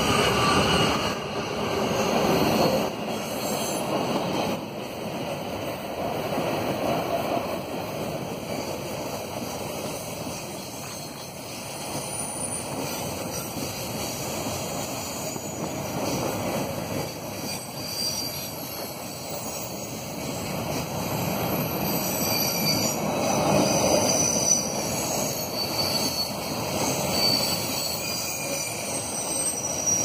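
Freight train wagons rolling past close by: a steady rumble and clatter of steel wheels on the rails. From a little past the middle come short, high-pitched squeals from the wheels.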